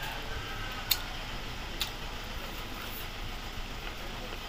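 A man eating adobo-braised chicken feet by hand: chewing and sucking at the feet, with three sharp mouth-smacking clicks about a second apart, over a steady low background hum.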